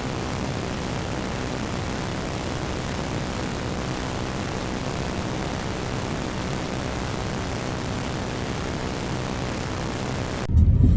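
Steady rushing road and wind noise of a car in motion, heard from inside. Near the end it gives way abruptly to louder music.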